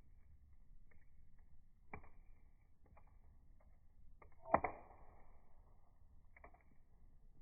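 Wood fire burning in a steel rocket fire pit: scattered pops and crackles, with one louder sharp pop about four and a half seconds in that rings on briefly.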